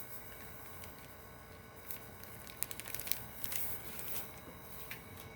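Faint handling noises, a scatter of light rustles and small clicks, as sharpening grit powder is shaken out into a palm, over a faint steady hum.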